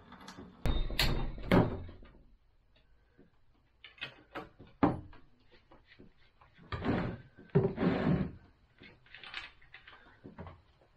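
Handling noise from tools and parts being worked on: three loud knocks in the first two seconds, then scattered clicks and a couple of short scuffs.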